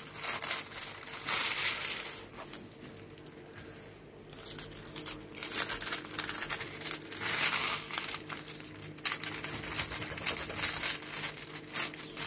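Clear plastic film over diamond painting canvases crinkling in irregular bursts as hands handle and smooth the sheets; it goes quieter for a couple of seconds about a third of the way in, then picks up again.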